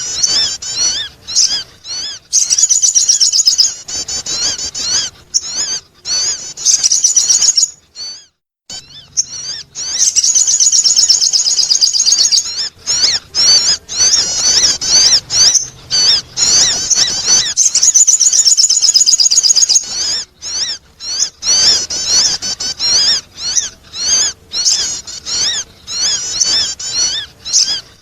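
Sogon bird calling in bouts of rapid, high chirping trills, each a few seconds long with short breaks between, the longest break about eight seconds in. This is a lure call, used to attract other birds.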